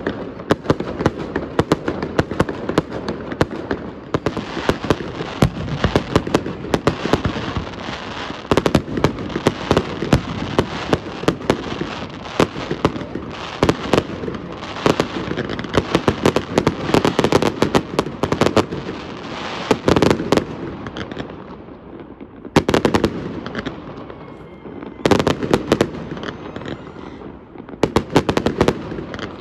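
Fireworks display: a dense stream of bangs and crackles from shells bursting overhead, with a few short lulls in the last third.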